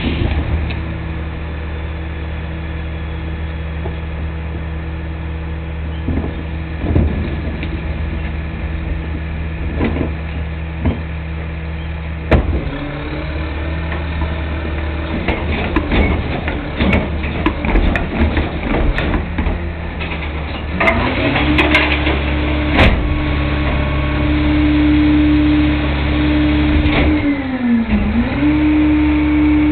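New Way rear-loader garbage truck's engine idling, then revving up twice to drive the hydraulics as the cart tipper lifts and dumps a 95-gallon cart, the second, higher rev held for several seconds before dipping and rising again near the end. Clanks and bangs of the plastic cart and dumping trash come through on top.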